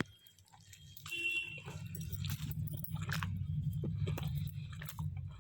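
Someone biting into and chewing a chicken shawarma wrap close to the microphone, with many small crunches and wet mouth clicks. A short high tone sounds about a second in.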